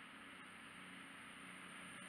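Faint, steady hum of an approaching CrossCountry Voyager diesel multiple unit's underfloor engines, growing slowly louder as the train nears.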